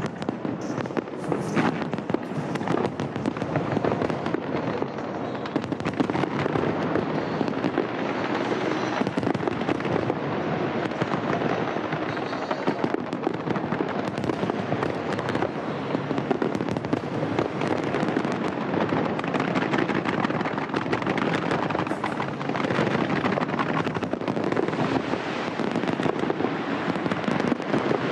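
Large aerial fireworks display: a continuous, dense barrage of bangs and crackling bursts with no break.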